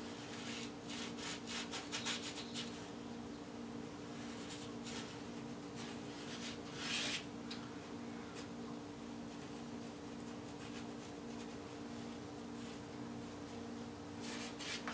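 Paintbrush stroking across a canvas board: scratchy rubbing strokes, busiest at the start and again near the end, over a steady low hum.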